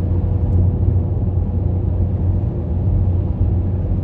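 Steady engine and tyre rumble heard from inside a vehicle's cab as it drives along at road speed, with a faint steady whine above it.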